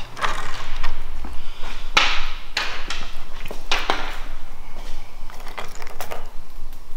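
Metal roller chain rattling and clinking as it is taken off a Maslow CNC's motor sprocket, in several separate bursts with knocks against the wooden frame.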